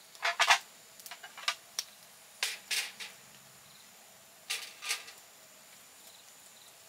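Dishes being handled and set down on a metal mesh camp table: short clattering knocks in four separate bursts, the last as a plate is put down about four and a half seconds in.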